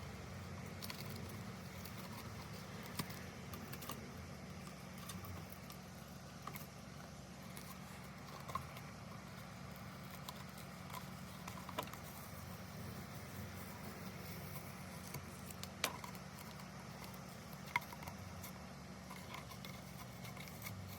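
Quiet handling sounds as painter's tape is peeled off freshly painted stripes: scattered light clicks and taps over a steady low hum.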